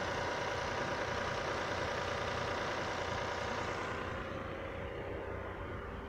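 Lexus RX 400h's 3.3-litre V6 running at idle under the bonnet, a steady mechanical noise that turns duller and a little quieter about four seconds in. The owner reports a knock in the engine compartment alongside ABS, VSC and hybrid-system faults.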